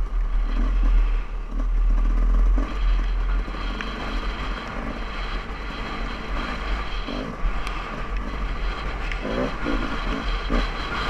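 Dirt bike engine running as the bike is ridden along a sandy trail, heard from the rider's helmet camera with a steady low rumble underneath. It is louder for the first few seconds, then settles a little lower.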